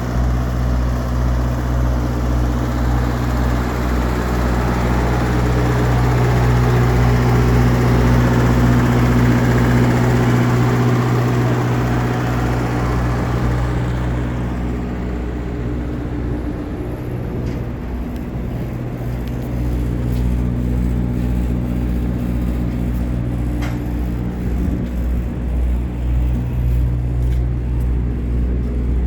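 A heavy diesel engine on a refrigerated truck rig running steadily at constant speed. A rushing hiss over it fades away about halfway through.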